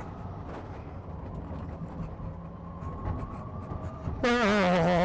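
Cockpit sound of the Drayson B12/69EV electric racing car at speed: a steady rumble of tyres and wind over a faint electric motor whine. About four seconds in, it switches abruptly to the car's whine heard from outside. This whine is much louder, with several overtones, and it dips in pitch and then holds.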